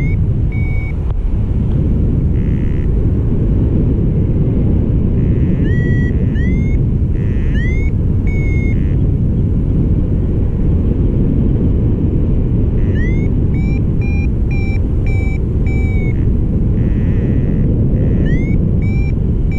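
Wind rushing over the microphone in flight, with a paragliding variometer (Flymaster GPS SD) beeping in clusters of short chirps that each slide up in pitch at the start: its climb tone, signalling lift while thermalling.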